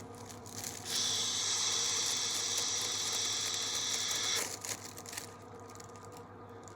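A steady hiss of rushing air, starting abruptly about a second in and cutting off sharply about three and a half seconds later, followed by a few faint clicks.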